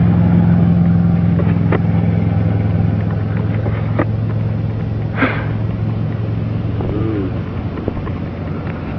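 Steady low hum of an idling vehicle engine, with a few faint clicks over it.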